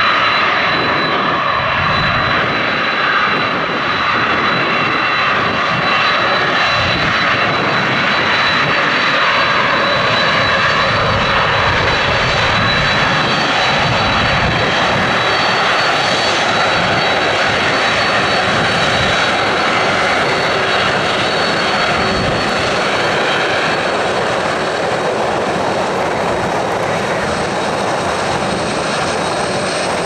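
Boeing 767-300ER's General Electric CF6 turbofans running with a steady roar and a high fan whine as the airliner lines up and moves along the runway; the whine grows stronger about halfway through. Gusty wind rumbles on the microphone underneath.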